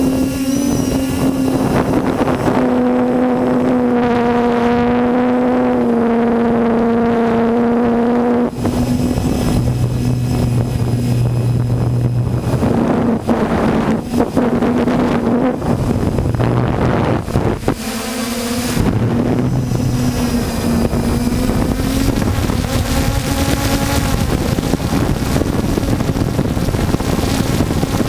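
Multirotor drone's electric motors and propellers buzzing steadily, the hum shifting in pitch now and then, with wind rushing over the onboard camera's microphone.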